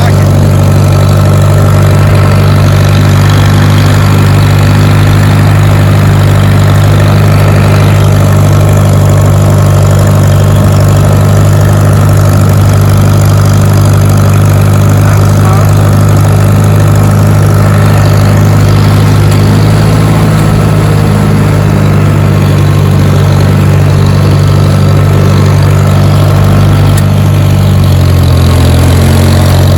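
Allis-Chalmers D17 tractor engine running steadily under way, its pitch shifting slightly about two-thirds of the way through and again near the end.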